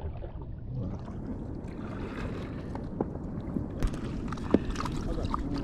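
Wind rumbling on the microphone and water washing around a kayak at sea, with a few small sharp knocks and clicks in the second half.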